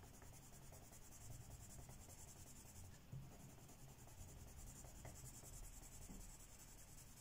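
Faint scratching of a Derwent Lightfast coloured pencil shading back and forth on paper.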